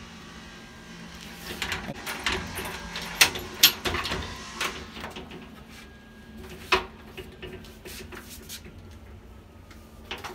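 A plastic louvered storage-cabinet door being unlatched and swung open: a string of sharp clicks and knocks, the loudest about three seconds in, one more knock near seven seconds, and handling rustle in between.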